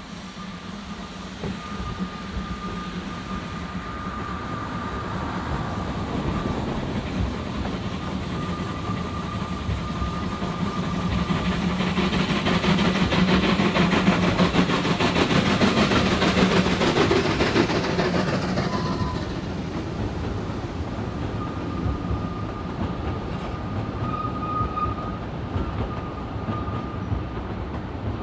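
Narrow-gauge Garratt steam locomotive and its train approaching and passing. The sound builds to its loudest about halfway through as the engine goes by, then the coaches roll past with wheels clattering over the rail joints.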